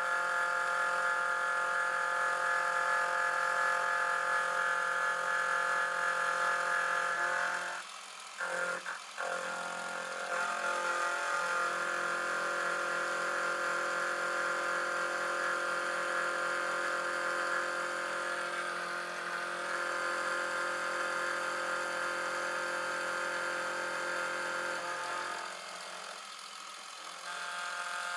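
Milling machine running with a steady whine made of many even tones as an end mill skims the top edge of a plate clamped to an angle plate. The sound dips briefly about eight seconds in and again near the end.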